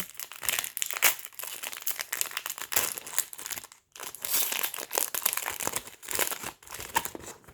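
A Topps baseball card pack's wrapper being torn open and crinkled by hand: a dense, irregular crackling with one brief pause near the middle.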